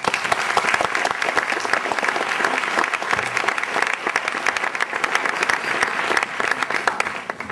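Audience applauding, steady, tapering off near the end.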